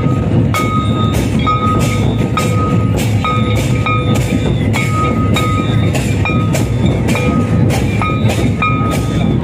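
Traditional Santali drum ensemble playing a steady beat: loud drum strokes about twice a second over continuous low drumming, with a ringing metal clang on about every other stroke.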